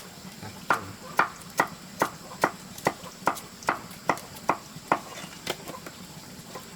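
Rhythmic chopping strokes of a blade, about two and a half a second, pausing about a second and a half before the end.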